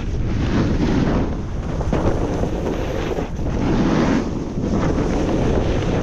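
Wind buffeting the action camera's microphone while a snowboard slides and carves over chopped-up snow, the scraping noise swelling and easing with each turn.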